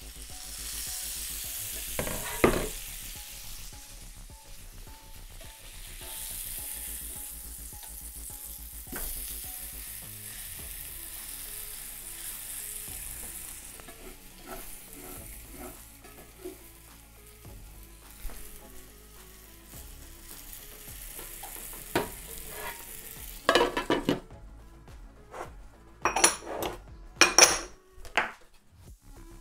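Cauliflower steak sizzling as it fries in oil and butter in a pan, with a sharp clank about two and a half seconds in as the pan and lid are handled. Near the end the sizzle falls away and a few sharp knife chops hit a plastic cutting board.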